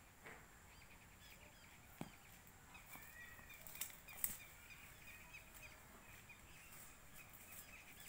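Near silence: faint rural outdoor ambience with birds chirping in the distance and a few soft clicks.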